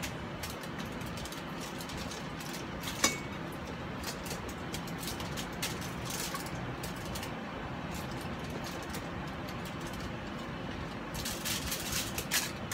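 Hands handling a raw whole chicken in a foil-lined roasting pan: scattered crinkles and clicks of the aluminium foil, a sharp knock about three seconds in, and a burst of crinkling near the end, over a steady background hiss.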